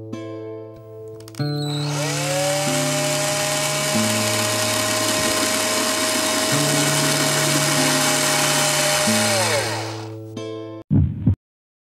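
Cordless drill boring into a chocolate creme egg: the motor spins up to a steady whine about two seconds in, runs for about seven seconds, then winds down and stops. Background music with sustained notes plays underneath, and a few short low pulses follow near the end.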